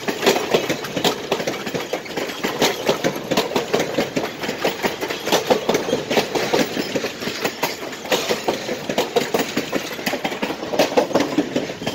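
Passenger cars of a train rolling past close by, their steel wheels clattering on the rails in a dense, uneven run of clicks over a steady rumble.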